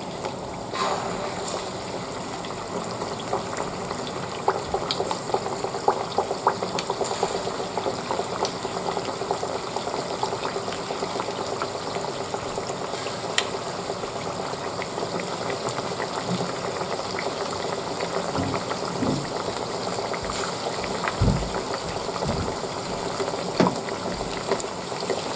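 Hand-shaped spinach and potato pakoras frying in hot cooking oil in a pan: a steady sizzle with fine crackling, picking up about a second in as batter goes into the oil. A few soft low knocks near the end.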